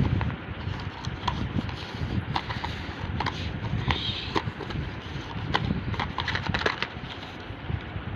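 Scattered light clicks and taps from handling packaging, over a steady low rumble.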